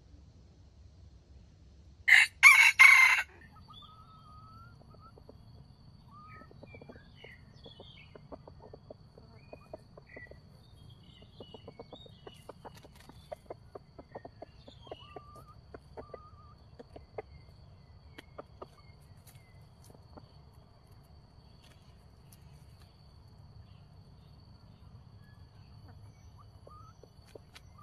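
A junglefowl rooster crows once, a short, loud crow of a few quick syllables about two seconds in. Faint scattered ticks and small chirps follow.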